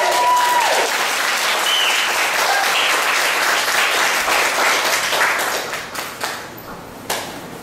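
Small audience applauding at the end of a dance, with a whoop near the start and a few shouts of cheer. The clapping thins out and dies away near the end.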